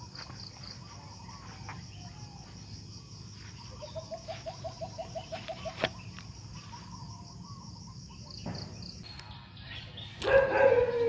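Evening insect chorus, a steady high-pitched cricket-like trilling. About four seconds in, a short run of rapid, evenly spaced lower pulses, some animal's call, lasts about two seconds. Near the end the insect sound cuts off and a louder voice begins.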